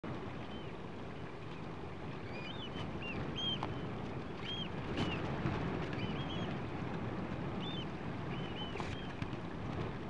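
Eurasian oystercatchers calling in flight: a string of short, piping calls from the flock, over a steady rush of wind and choppy sea.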